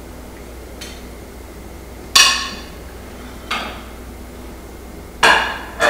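Metal serving tongs clinking against ceramic plates while food is served, each strike ringing briefly: a faint tap about a second in, then sharp clinks about two seconds in, again at three and a half, and a quick pair near the end.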